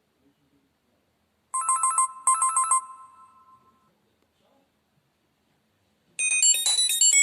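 Alcatel OT-808 mobile phone playing its built-in alert tones: a short double trill of rapid high beeps about a second and a half in that rings away, then, after a pause, a different melodic tone with fast-changing notes starts near the end.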